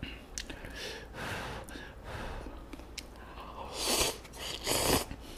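A person slurping instant kimchi ramen noodles off chopsticks, with soft chewing and small mouth clicks; two louder slurps come near the end, about four and five seconds in.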